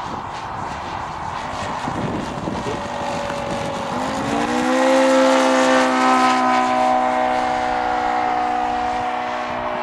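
ASP 400 radial engine of a large radio-controlled F4U Corsair model, running in flight as the plane passes overhead. About four seconds in its note rises and then holds steady and louder.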